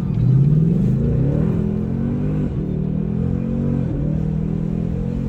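Car engine revved: the pitch climbs quickly over about a second and a half, then holds at higher revs, with short drops around halfway and near the end.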